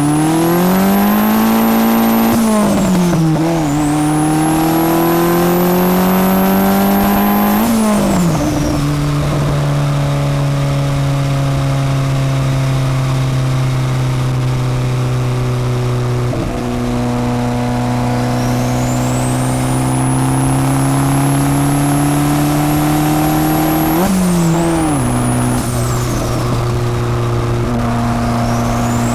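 Turbocharged Honda Civic D16 four-cylinder pulling hard. The engine climbs in pitch with a high turbo whistle rising over it, then drops sharply three times as the throttle is lifted or a gear is changed, and the whistle falls away each time. Between the second and third drops there is a long, steady pull that rises only slowly.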